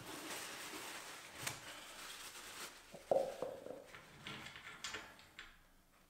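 Faint rustling hiss of handling for about two and a half seconds, then a sharp click about three seconds in with a brief ring, followed by a few softer rustles.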